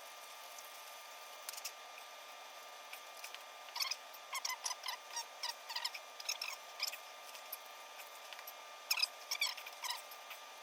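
Plastic blower wheel hub squeaking and creaking in short chirps as it is worked off a rusty motor shaft. The squeaks come in a run from about four seconds in, then a shorter run about nine seconds in.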